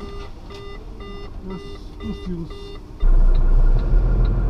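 Electronic warning beeps repeating about twice a second over a low lorry engine idle. About three seconds in the lorry's diesel engine rumble gets suddenly much louder, with the hazard-light relay ticking about twice a second.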